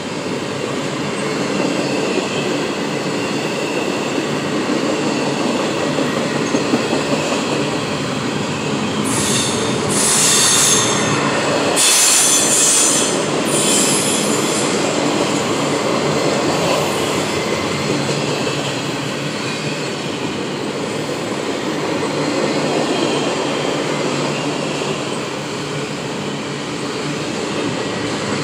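Double-stack intermodal freight train rolling past, its container cars making a steady rumble and rattle on the rails. About halfway through, the wheels squeal high-pitched for several seconds.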